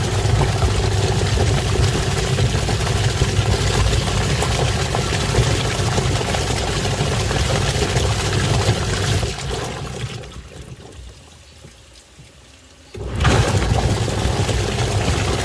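Washing machine running with water churning in the tub over a steady low motor hum. The sound dies away about ten seconds in and starts again abruptly a couple of seconds later, as the wash action pauses and resumes.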